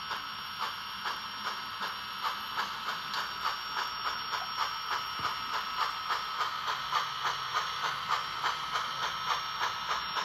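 Simulated steam-locomotive exhaust chuffs from a SoundTraxx Tsunami2 steam sound decoder in an HO-scale Tyco/Mantua Pacific model, played through the model's small onboard speaker over a steady hiss as the locomotive runs. The chuffs come in an even rhythm that quickens from about two to about three a second.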